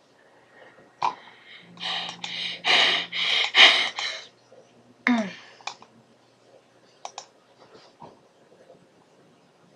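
A person's loud voice in a run of short bursts for about two seconds, then a single falling cry about five seconds in, with a few sharp clicks scattered after it.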